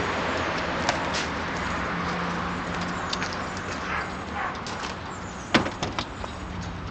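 Steady engine and road noise heard inside a car, with a low hum. A few sharp clicks or knocks come near the end.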